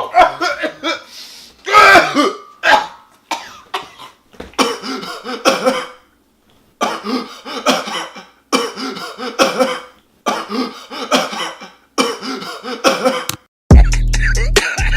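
A person choking and coughing hard, hacking and clearing the throat in loud rasping fits. After a brief gap the same coughing fit repeats four times at even spacing, as if looped. About a second before the end, a hip-hop beat with deep bass comes in.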